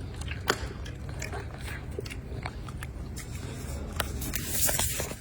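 Golden snub-nosed monkeys eating food handed to them: scattered sharp crunches and clicks over a steady low rumble, with a short rustle near the end.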